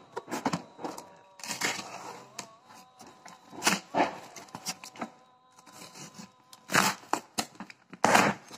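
Cardboard shipping box being torn open by hand: tape and flaps ripping and crackling in short irregular bursts, with two loud rips about seven and eight seconds in.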